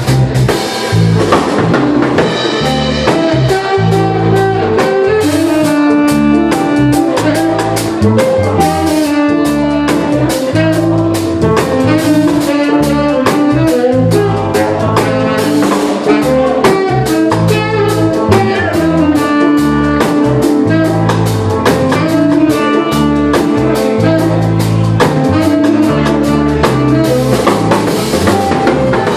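Jazz fusion band playing: a drum kit keeps a steady beat under a bass line and held, melodic lead notes.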